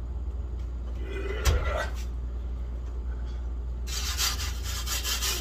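A single knock about a second and a half in, then near the end a harsh scraping for about a second and a half as an aluminium pizza peel slides a frozen pizza off onto a pizza steel in the oven.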